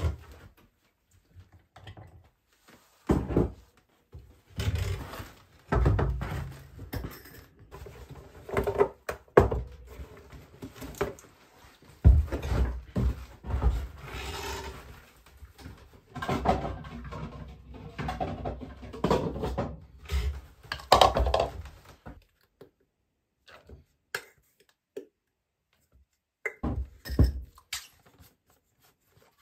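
Kitchen handling sounds: irregular knocks, thuds and rustling as things are taken out of a cupboard and set down on a wooden counter. Near the end there are a few small clicks as a plastic bottle's cap is twisted open.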